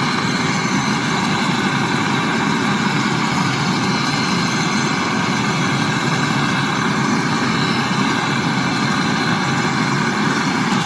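Gas brazing torch flame hissing steadily as it heats a copper pipe joint on a freezer compressor to brazing heat.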